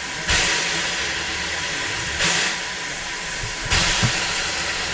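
Steam locomotive standing at the platform, hissing steadily, with louder gusts of steam about every one and a half to two seconds.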